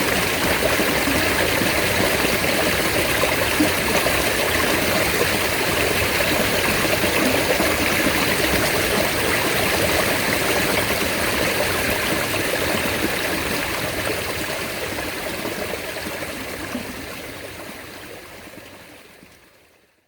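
Mountain stream water rushing steadily, then fading out over the last several seconds.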